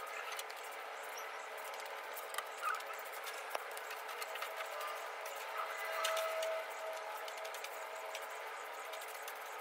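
Scattered rustling, scraping and small clicks of dirt and debris being cleared by hand out of a wooden rabbit cage.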